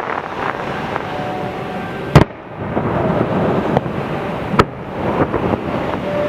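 Fireworks display: two sharp, loud bangs of shells bursting about two and a half seconds apart, over a steady crackle and rumble of other bursts.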